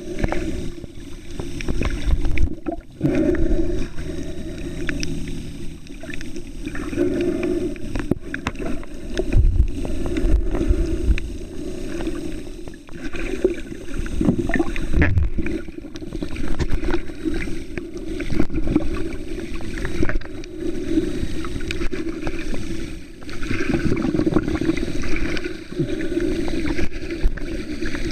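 Muffled underwater sound picked up by the microphone of a submerged Olympus Tough waterproof camera: a steady low rumble of moving water that swells every few seconds, with scattered small clicks and knocks.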